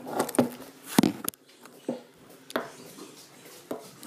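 Several sharp knocks and taps of things being handled on a wooden table, spaced irregularly and loudest about a second in.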